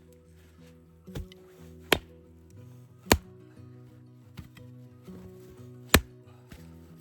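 Wood being chopped: a few sharp, irregularly spaced strikes, the loudest near the end. Soft background music with sustained low notes plays underneath.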